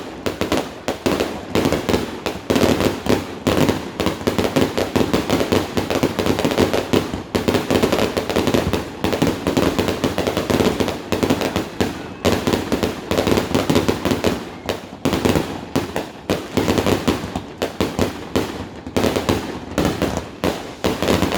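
Fireworks going off in a rapid, continuous barrage of bangs and crackles, many blasts a second.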